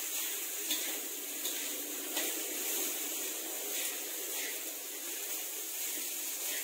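Rice sizzling in hot oil in a wok as it is stir-fried: a steady hiss with a few faint scrapes of the metal spatula against the pan.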